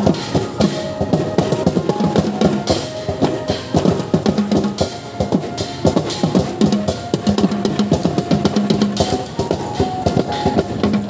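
Music with a busy drum beat and held pitched notes.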